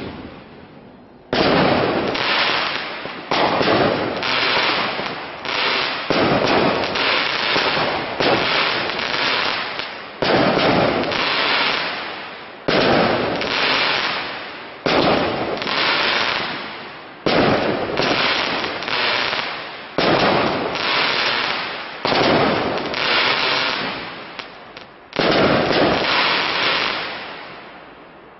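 Fireworks display: aerial shells bursting in quick succession, a new bang every second or two, each one trailing off over a second or more. The run goes on for about 25 seconds, and the last burst fades out near the end.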